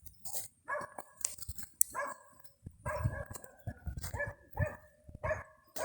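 A dog barking repeatedly, short high barks about two a second, over a low rumble.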